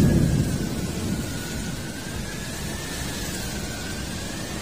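Heavy rain and strong wind of a severe storm making a steady rushing noise, with a low rumble at the start that fades over about a second.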